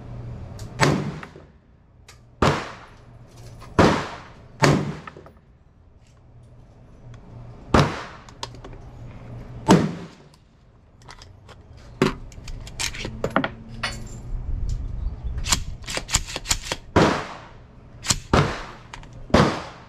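Rifle gunshots, a dozen or so at uneven intervals of one to three seconds, each trailed by a short echo under the range's metal roof. Among them is an 11.5-inch AR-15 pistol in .223/5.56 being fired to zero its scope.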